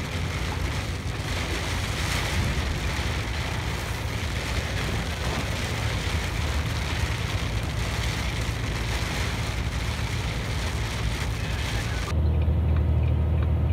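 Loaded truck's diesel engine running low as it creeps down a steep grade, under a steady hiss of rain. About twelve seconds in the hiss cuts off suddenly, leaving a louder, steadier engine drone.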